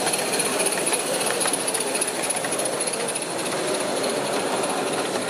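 Live-steam model locomotive hissing steadily, a continuous rushing hiss with a constant high edge and a few faint clicks.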